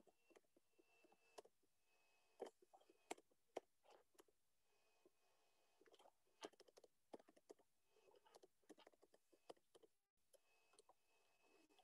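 Faint typing on a computer keyboard: irregular keystroke clicks, some in quick runs.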